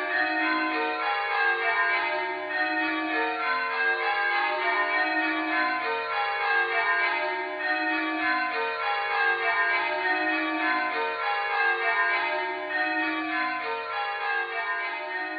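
A ring of church tower bells rung in changes. The bells strike one after another in rows that step down the scale from the highest bell to the lowest, at a steady, even pace.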